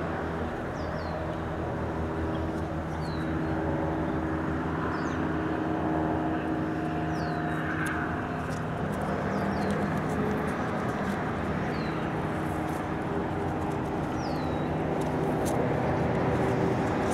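Steady drone of a distant engine, with a small bird's short falling chirps every second or two.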